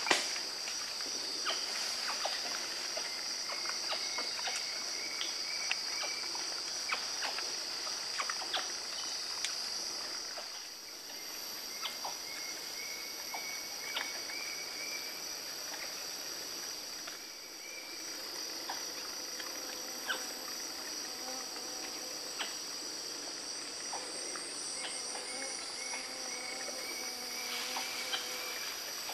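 Steady, high-pitched chorus of forest insects (crickets or cicadas), with scattered short clicks and snaps and a faint pulsing call that comes and goes three times.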